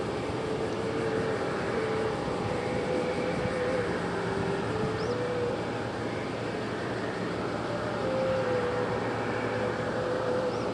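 Airbus A340-600 on final approach, its four Rolls-Royce Trent 500 engines heard from a distance as a steady jet noise carrying a whining tone that steps up and down in pitch.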